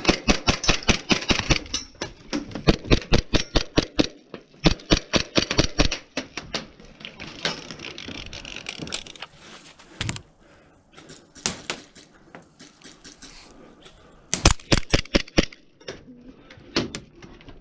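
Airsoft guns firing in rapid bursts of sharp clicks. The densest and loudest burst fills the first two seconds, and shorter bursts of one to two seconds follow with pauses between.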